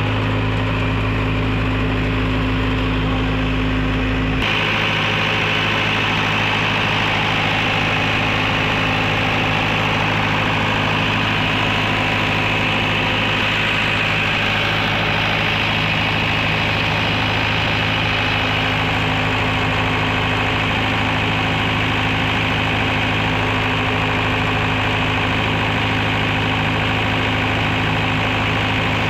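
A 62.5 kVA silent-canopy generator set's engine running steadily during a test run: a constant hum with an even, unchanging pitch. About four seconds in the sound shifts abruptly, with less deep rumble and more high hiss.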